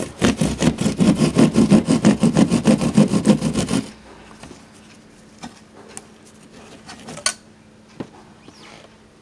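A hand saw blade worked rapidly back and forth beside an electrical wall box, several strokes a second, cutting through the nail that fastens the box in the wall. The sawing stops about four seconds in, and a few faint knocks follow.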